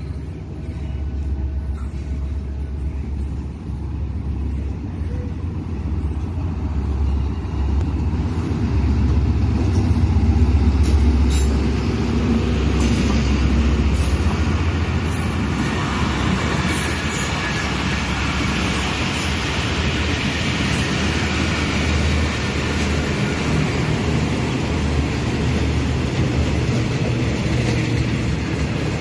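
Passenger train pulling into a station behind a ZCU-30 diesel-electric locomotive: a heavy low engine rumble that builds to its loudest about ten seconds in as the locomotive passes, then the coaches rolling by on the rails as the train slows to a stop.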